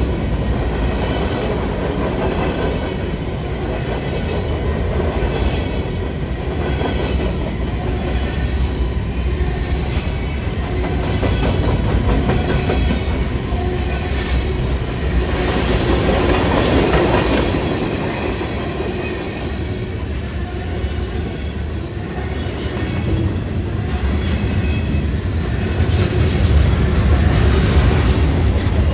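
Railroad cars rolling past, a steady rumble with the clicks of wheels passing over rail joints.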